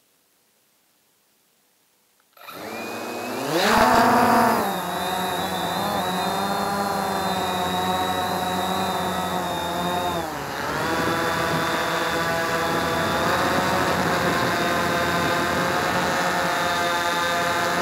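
Quantum Nova quadcopter's four motors and propellers, heard through its own onboard camera. Silent at first, they spin up about two seconds in and rise in pitch as it lifts off. They then run as a steady whine in the air, with a brief drop in pitch about ten seconds in.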